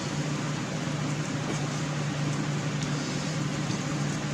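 Steady mechanical hum with a low, even drone, the kind of background hum an air conditioner or fan gives in a small room.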